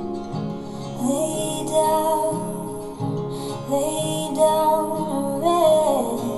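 A song with acoustic guitar and a singing voice, played through a small bookshelf-type speaker driven by a Bose five-channel car amplifier from a Mazda RX-8. The amplifier is on a bench test, each channel checked in turn, and this channel is passing music.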